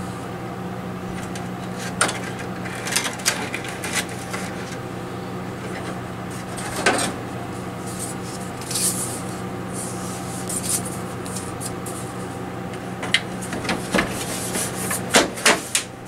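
Plastic front grille and parts of a window air conditioner being handled and fitted back on: scattered clicks, taps and rubbing, busiest near the end, over a steady low hum.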